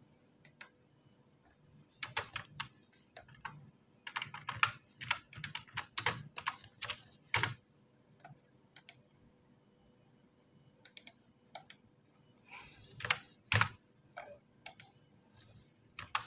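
Typing on a computer keyboard: runs of quick keystrokes, busiest in the first half and again near the end, with scattered single key clicks between.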